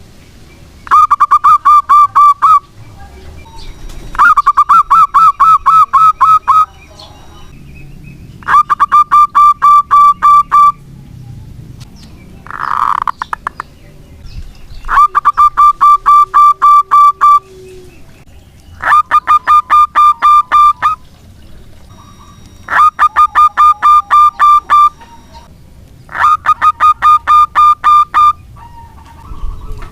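Zebra dove (perkutut) cooing: repeated bursts of rapid, evenly pulsed notes, each burst about two seconds long, recurring every three to four seconds. A shorter, different call comes a little before halfway.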